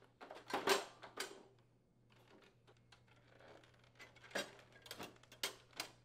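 Ice machine door assembly being handled and seated into its outer metal panel: a quick run of knocks and rustling in the first second or so, then several sharp clicks and taps near the end.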